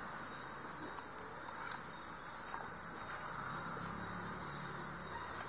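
Chopped tender jackfruit, shallots and green chillies tossed by hand with spice powders in a clay pot: soft rustling with a few faint clicks of the pieces, over a steady hiss.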